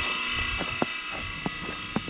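A Kobayashi CLB26 AC vibratory horn in a FireX FX1020 smoke alarm sounding its alarm, a continuous harsh buzz that slowly gets quieter, with a few sharp clicks over it.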